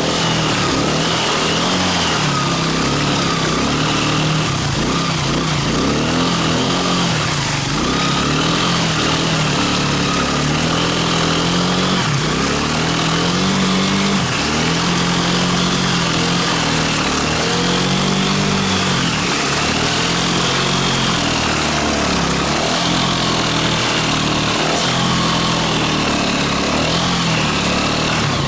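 Quad bike (ATV) engine running under way, its revs rising and falling over and over with the throttle.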